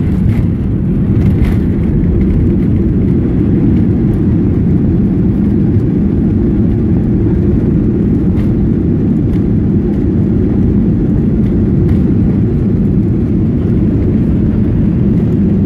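Cabin noise of a Boeing 737 rolling out on the runway after touchdown: a steady, heavy low rumble from the engines and the wheels on the runway.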